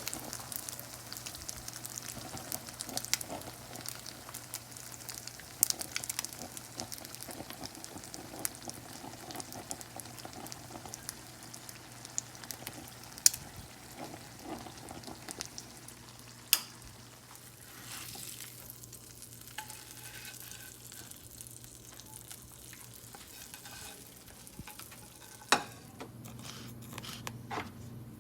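Hot oil sizzling and crackling around an iPhone being deep-fried, with sharp pops now and then. The crackle thins out about two-thirds of the way through. A low steady hum runs underneath.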